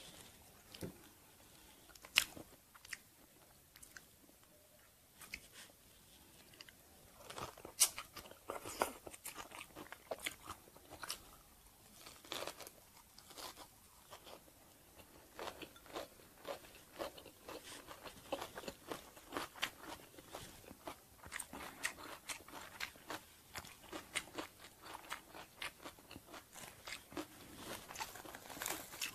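Close-miked eating of banh chhev, a crispy rice-flour crepe wrapped in lettuce and herbs: crunching bites and chewing. There are only a few scattered crunches at first; from about a quarter of the way in they come thick and fast.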